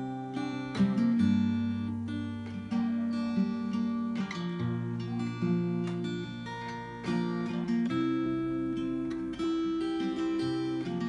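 Steel-string acoustic guitar with a capo, picked and strummed through a chord progression. The chords change every second or so, and the notes ring on between strokes.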